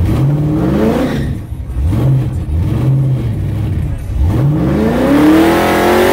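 Car engine, heard from inside the cabin, being revved in bursts: a quick rev at the start, two short blips, then a long rev climbing steadily near the end. The owner says this engine is running a bad air-fuel ratio.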